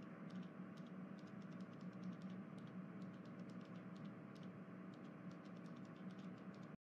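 Faint steady hum and hiss with scattered light clicks, cutting off suddenly near the end.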